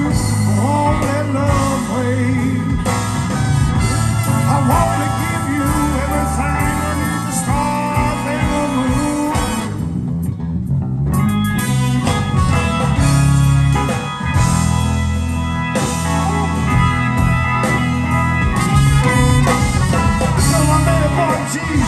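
Live blues band playing an instrumental stretch of a song, with guitar, bass and drum kit. The high end drops out briefly about halfway through.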